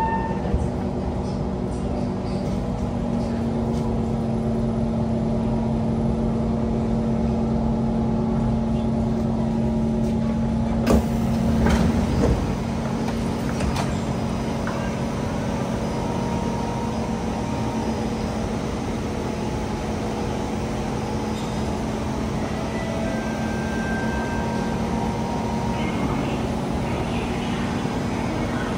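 Kawasaki C151 MRT train running in an underground tunnel, heard from inside the carriage: a steady rumble with a steady hum of several tones, and a sharp clack about eleven seconds in.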